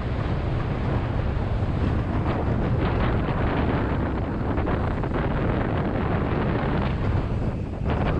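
Wind buffeting the microphone of an action camera on a mountain bike riding down a rough trail, a steady low rumble with scattered short rattles and knocks from the bike.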